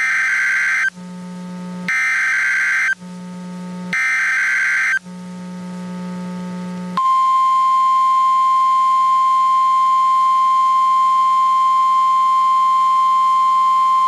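NOAA Weather Radio emergency alert start: three short bursts of SAME data-header screech, each about a second long and two seconds apart. About seven seconds in, the steady single-pitch 1050 Hz warning alarm tone begins and holds, signalling a hurricane and storm surge warning broadcast.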